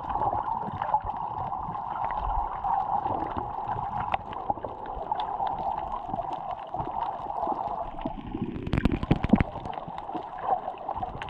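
Muffled underwater water noise picked up by a GoPro Hero 7 on a coral reef: a steady hum with gurgling and low rumble, and a brief flurry of knocks about nine seconds in.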